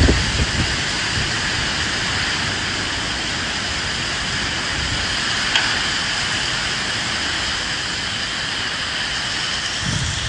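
Steady rain falling, a dense even hiss, with low gusts of wind rumbling at the start and again near the end. One brief tick about halfway through.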